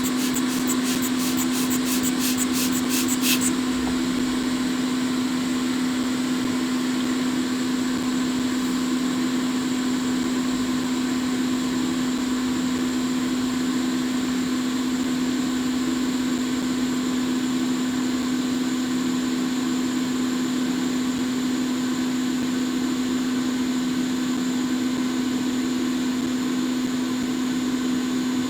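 Steady electric fan motor on a soldering workbench, humming with a strong low tone, with a quick run of faint clicks over the first few seconds.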